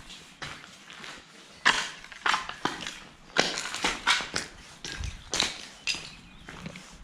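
Footsteps crunching over loose rubble and grit in an uneven walking rhythm, growing louder a couple of seconds in.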